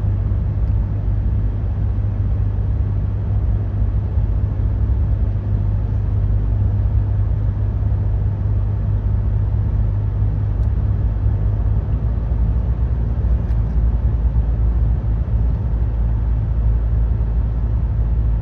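Steady low rumble of road and engine noise inside a vehicle's cabin while it cruises along a highway.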